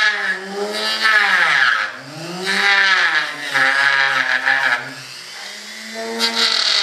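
Handheld rotary tool with a small cutting disc whining as it cuts square notches; the whine dips and rises in pitch several times as it works.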